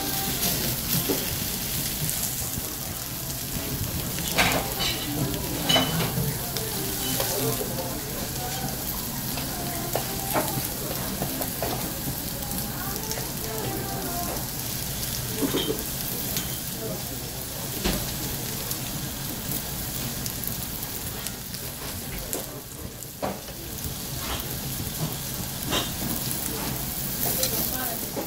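Lamb steak sizzling steadily on a domed cast-iron Genghis Khan grill. A few sharp metallic clicks come from the tongs and scissors knocking against the grill.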